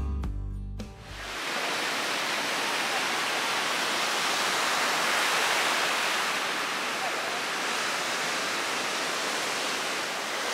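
Steady rush of surf breaking on a sandy beach. Music fades out in the first second and a half.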